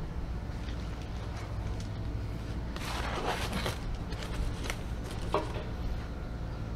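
Aluminium foil packets crinkling as they are pressed and shifted on a barrel smoker's grate, in a few short bursts from about three seconds in, over a steady low rumble.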